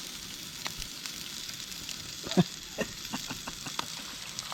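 Burgers sizzling on a grill, a steady frying hiss with a run of small pops and clicks through the middle.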